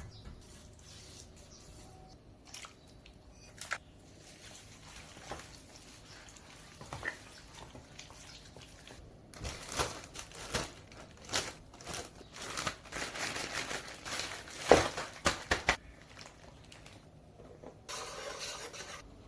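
Food being prepared by hand in a kitchen: scattered taps and clinks, then a busier stretch of rustling, scraping and knocks, and a short hiss near the end.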